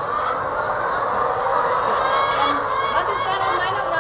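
A large flock of brown laying hens clucking and calling together in a dense, steady chorus, with short higher calls standing out more often from about two seconds in.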